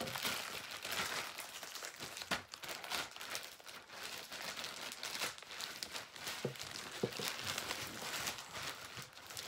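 Plastic packaging (a clear sleeve and bubble wrap) crinkling and rustling in a continuous crackle as it is pulled off and handled around a new fishing rod.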